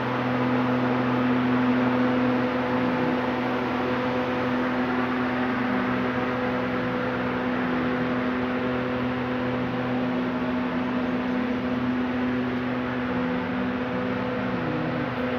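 Steady machine hum: a constant low drone with a fixed pitch over an even hiss, unchanging throughout.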